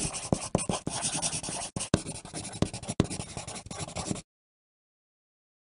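Pencil writing on paper: a continuous scratchy stroking with small ticks of the lead against the page. It breaks off twice for an instant, then cuts off suddenly about four seconds in.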